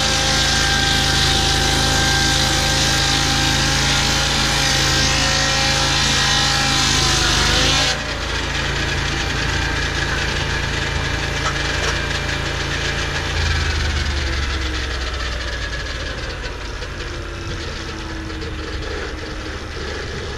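Lucas portable swing-blade sawmill cutting through a gum log, its engine running under load with a bright hiss from the blade. About eight seconds in the cut ends and the hiss stops suddenly, leaving the engine running; a deeper hum comes in about halfway through and the sound slowly eases.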